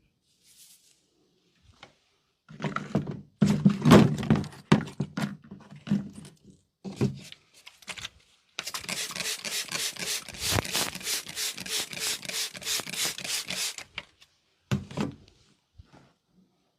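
Massage tapping: hands striking a person's head and body in a quick, even run of about five strikes a second for some five seconds. Before it come a few louder, irregular thumps.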